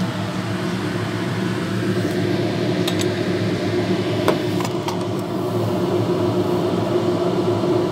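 Steady motor hum, such as a fan or running appliance, with a few light clicks and clinks about three to five seconds in.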